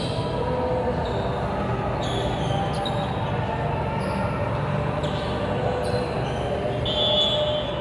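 Volleyball game in a large indoor gym: a steady background din of the hall, with scattered short sneaker squeaks on the court and ball thumps on the floor, one squeak clearest near the end.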